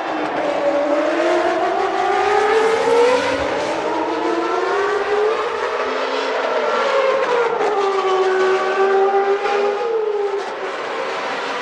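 Formula One race car engines at high revs, several engine notes overlapping, their pitch climbing and dropping again and again as the cars accelerate and slow.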